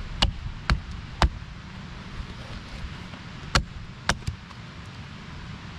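A gloved hand striking a freshly sawn log, trying to break it at the saw cut. Six sharp knocks: three in the first second and a half, then three more from about three and a half seconds in.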